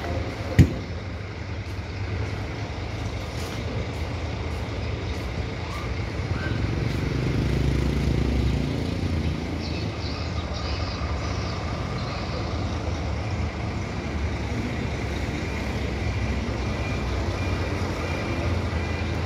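Street traffic: a motor vehicle's engine rumbles steadily nearby, growing louder about eight seconds in. A single sharp knock comes just under a second in.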